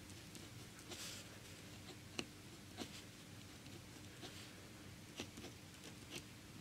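Faint scratching and light ticks of a pen drawing short strokes on paper, with a brief scratchy stroke about a second in and a few sharp taps as the tip touches down.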